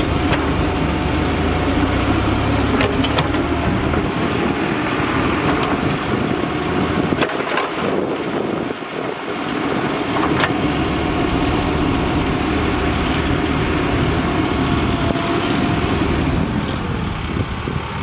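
Mahindra Earthmaster SX backhoe loader's diesel engine running steadily under load as its backhoe arm digs, with a few sharp knocks along the way. The low end of the engine sound eases briefly around the middle.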